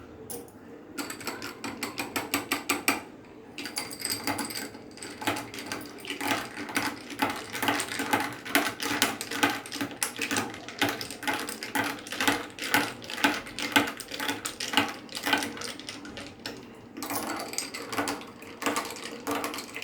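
A spoon stirring ice cubes in a glass of mango sharbat: fast, even clinking, several strokes a second. It starts about a second in and eases briefly near the end.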